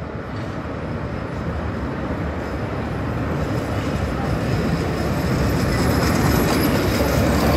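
Tatra KT4YU articulated tram running along the rails toward the listener and passing close by, its wheel-on-rail noise growing steadily louder and loudest as it goes past near the end.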